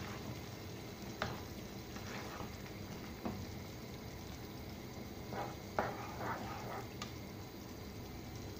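Red kidney bean curry being stirred slowly with a ladle in a nonstick pan, the hot gravy giving a steady soft sizzle. The ladle knocks against the pan a few times.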